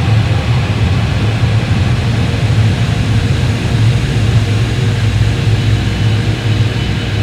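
Time-stretched heavy-shoegaze music as an ambient drone: a dense, steady wall of distorted sound with a heavy low rumble and faint sustained tones above it, with no beat.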